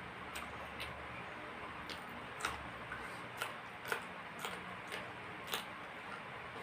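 Mouth sounds of someone eating chicken: chewing with a string of sharp wet clicks and smacks, irregularly about once or twice a second, over a faint low hum.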